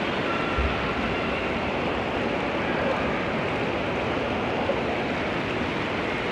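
Steady rush of water pouring and splashing from a splash-pad fountain onto the wet floor and over a small plastic doll held under the stream.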